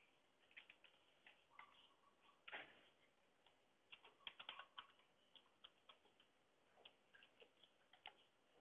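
Faint, irregular clicks of a computer keyboard being typed on, with a quick run of keystrokes about four seconds in, over near silence.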